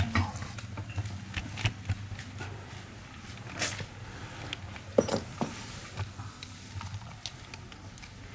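Scattered knocks and clinks of ceramic pots and kiln furniture being handled and set in place while a wood-fired kiln is loaded, the sharpest knocks right at the start and about five seconds in, over a faint steady low hum.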